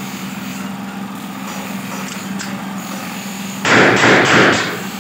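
A rapid burst of several shots from an AK-47-pattern rifle, about a second long, starting about three and a half seconds in, over a steady engine hum. The reports are weak, which the shooter puts down to low-powder, counterfeit cartridges.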